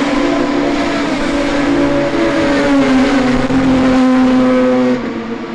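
IndyCar race cars' twin-turbocharged V6 engines running, a loud, steady engine note that drops slightly in pitch about two seconds in. The sound cuts off suddenly near the end.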